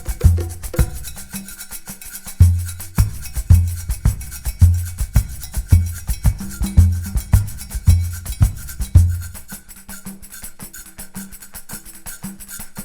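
Background music with a percussive, cowbell-like beat over deep bass notes; the bass drops out for a few seconds near the end, leaving lighter percussion.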